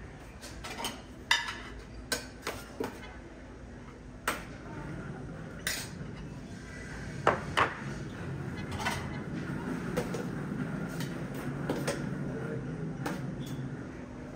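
Metal spoon clinking and scraping against a stainless steel hotel pan while salad is dished out, with ceramic plates knocked down onto a table: about a dozen sharp clinks at irregular intervals over a low steady hum.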